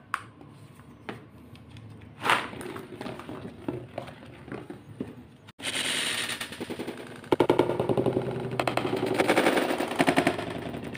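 Beyblade spinning tops clattering and clashing against each other and the walls of a cardboard stadium, a fast rattle of hits that grows loud about seven seconds in. Before that come scattered clicks and knocks as the tops and launchers are handled.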